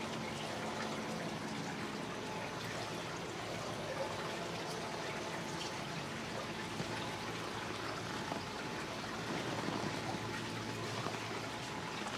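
Steady wash of water along the hull of a slow-moving canal boat, with a faint even hum underneath.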